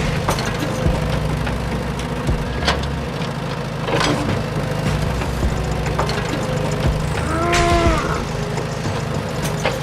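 A small motor running steadily with a low hum, with scattered sharp clicks and knocks. About three-quarters of the way through, a brief pitched sound rises and falls.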